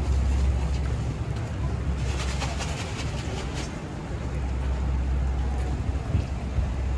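City street ambience on wet roads: a steady low rumble of traffic with an even hiss, and a quick run of sharp clicks about two seconds in, lasting over a second.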